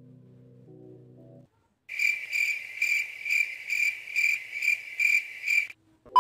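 Soft background music for about a second and a half, then a cricket chirping steadily, about two to three high chirps a second, for nearly four seconds before it stops.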